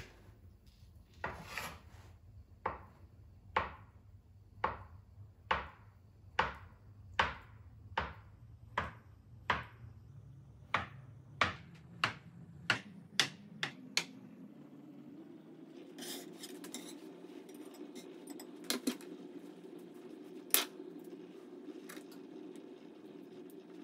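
Kitchen knife slicing through an avocado half, the blade knocking on the cutting board with each stroke, about seventeen knocks a little under a second apart that come quicker near the end and stop about 14 seconds in. After that a steady low hum, with a few light clicks.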